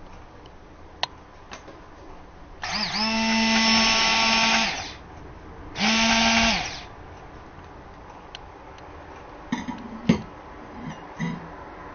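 Excelvan 500W DC-motor hand blender with its stick blending attachment run empty in the air twice: a steady high motor whine that spins up quickly, runs about two seconds and winds down, then a second, shorter run. A few light knocks near the end as the blender is laid on the worktop.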